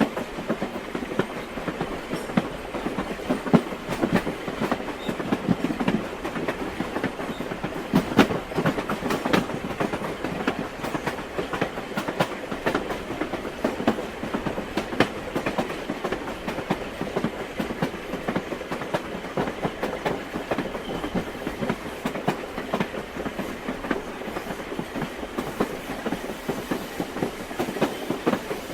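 Train cars running along the track, a steady dense clatter and clacking of wheels over the rails.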